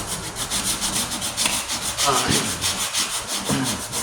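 40-grit sandpaper rubbed in quick, even back-and-forth strokes over filler primer on a steel tailgate patch, with a few short squeaks in the middle.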